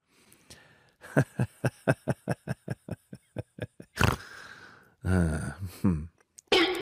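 Kitten lapping milk from a glass bowl: a quick, even run of wet tongue laps, about six a second, with one sharper, louder lap near the middle. About a second later comes a short low grunt.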